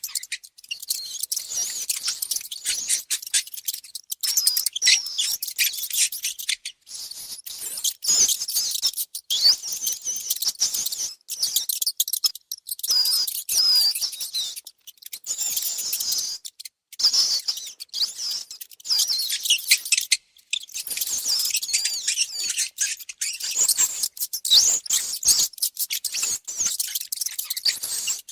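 Mice squeaking: a rapid, near-continuous stream of short, high-pitched chirping squeaks, broken only by a few brief pauses.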